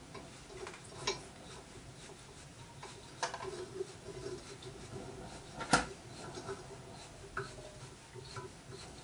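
Light metallic scraping and clicking of a small pointed hand tool working the drilled holes of a metal block, with the block shifting on the cast-iron drill-press table; one sharper clink a little past halfway.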